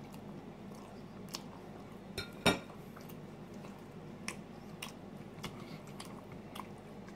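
Light clicks and scrapes of a metal fork in a cup of instant noodles, with one sharp, louder knock about two and a half seconds in. A steady low hum runs underneath.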